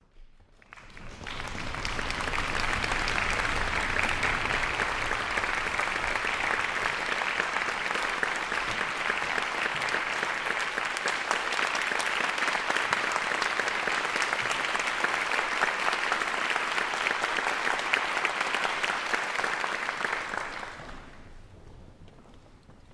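Audience applauding, swelling up in the first couple of seconds, holding steady, then dying away about twenty-one seconds in.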